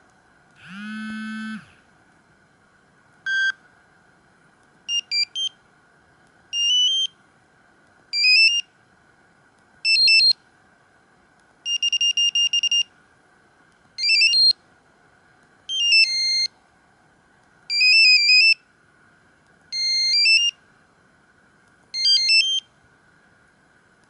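Samsung SGH-C120 mobile phone's loudspeaker previewing its built-in message tones one after another: a buzzy tone of about a second near the start and a short beep, then a run of ten short stepped electronic beep melodies, each under a second, about every two seconds.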